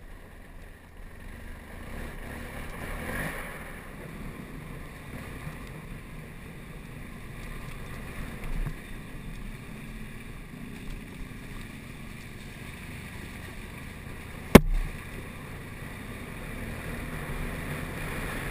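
BMW F800 GS parallel-twin engine running at low speed over a rough forest track, with wind noise on the microphone. A single sharp knock stands out about three-quarters of the way through.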